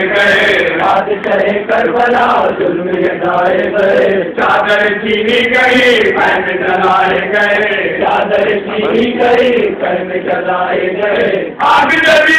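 Men chanting a noha, a Shia lament, with a lead voice and others joining in.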